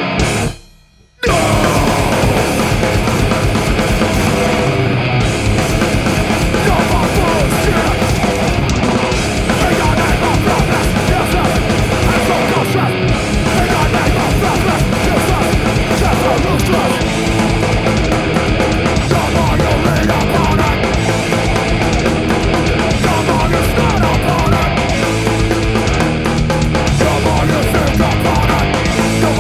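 A heavy band plays live with distorted electric guitar, bass guitar and drums. About a second in, the band cuts off in a sharp stop, then crashes back in together and keeps driving hard.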